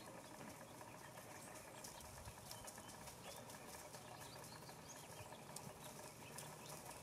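A flock of wild turkeys foraging, heard faintly: scattered short high chirps and light clicks over a quiet background.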